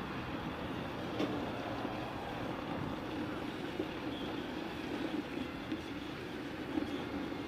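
Concrete mixer truck's diesel engine running steadily: a low, even hum over a wash of outdoor noise.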